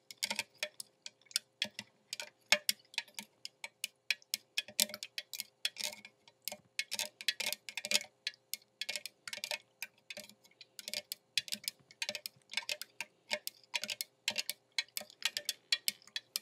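Butter knife stirring water in a small Sea-Monkeys tank, clicking and tapping quickly and unevenly against the tank's sides and bottom. It is stirring in water purifier that has settled at the bottom.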